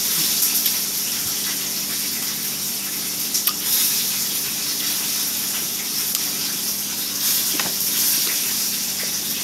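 A loud, steady rushing hiss with a low hum under it, like running water or a fan, and a couple of small clicks in the middle.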